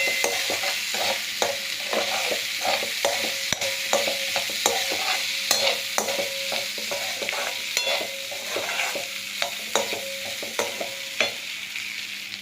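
Boiled potato pieces being stirred and sautéed with onion and spices in hot oil in a kadai: a spatula scrapes and knocks against the pan again and again over a steady sizzle.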